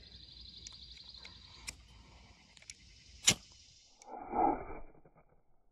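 Steel striker struck along a ferrocerium rod to throw sparks into a tinder bundle: a few faint clicks, then one sharp strike a little over three seconds in, followed by a short rasping scrape about a second later. The child's strikes are too weak to light the tinder.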